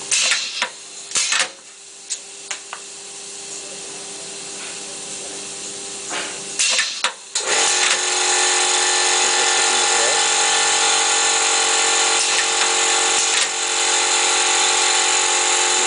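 WSP-07 electro-pneumatic wire stripper at work: sharp clacks and short air hisses in the first seconds and again about seven seconds in, then a loud, steady mechanical whirr with hiss that keeps going.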